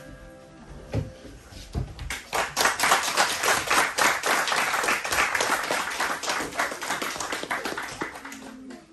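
Applause, a group clapping for about six seconds starting about two seconds in and thinning out near the end. It is preceded by a couple of short wooden knocks.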